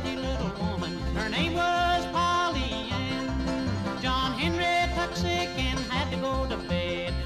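Bluegrass music with banjo and a steady bass beat, an instrumental stretch between sung verses.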